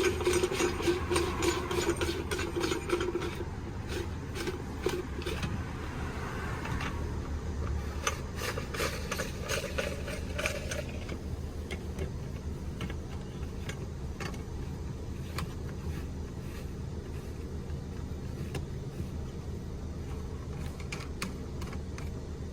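Rapid clicking and rattling of the bed platform's metal frame parts being handled and adjusted, most busy in the first few seconds and again partway through, then only occasional clicks over a steady low hum.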